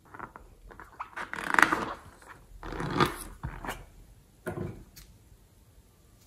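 A slime-filled rubber balloon being handled, its skin rubbing against the fingers in three short bouts, the loudest about a second and a half in.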